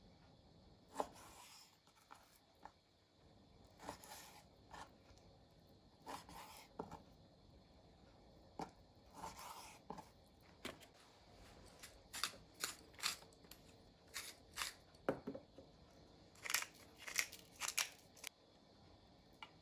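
Kitchen knife cutting boneless chicken thigh on a wooden cutting board: irregular knocks of the blade on the board and scraping and tearing as it goes through the meat, coming thicker and faster in the second half.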